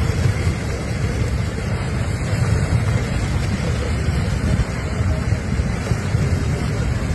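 Strong wind buffeting the microphone: a steady, loud rumbling rush with no clear pitch.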